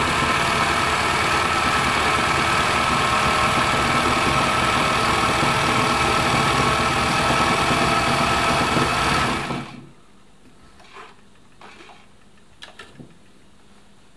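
Elna Supermatic SU 62C sewing machine running steadily at speed, stitching a cam-driven decorative star pattern. The motor stops suddenly about ten seconds in, followed by a few faint clicks.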